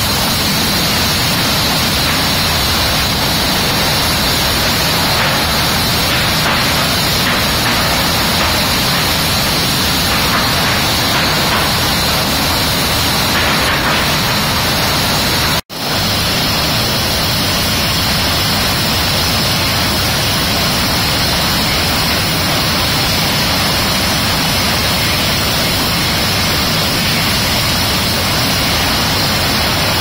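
Loud, steady din of sawmill machinery running, an even noise with a constant high hiss and no distinct strokes. It cuts out for an instant about halfway through.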